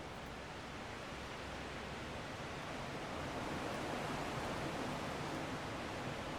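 Strong wind blowing as a steady rushing noise, swelling in a gust about halfway through and easing slightly near the end.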